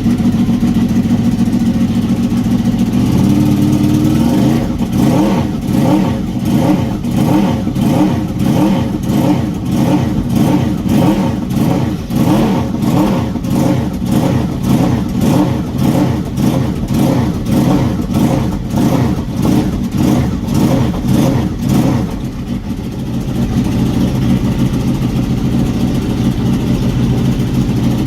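Honda VFR800 VTEC's V4 engine idling, then revved up and down over and over for most of the stretch, before settling back to a steady idle near the end.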